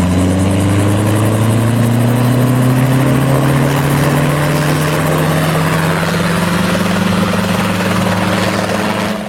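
Helicopter sound, a steady rotor-and-engine drone whose pitch rises slowly. It starts and cuts off abruptly.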